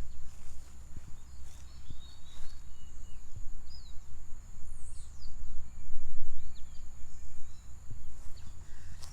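Tropical birds chirping in short, repeated calls over a steady high insect drone, with a few footsteps and a low rumble that swells about six seconds in.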